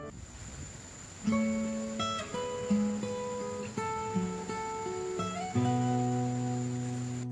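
Background music: an acoustic guitar plucking single notes, then a low chord struck about three-quarters of the way through that keeps ringing.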